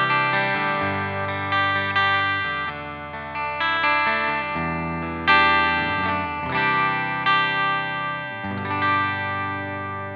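Harley Benton Fusion-III electric guitar played on a clean sound through the bridge humbucker in full humbucker mode. Ringing chords and notes change every second or two.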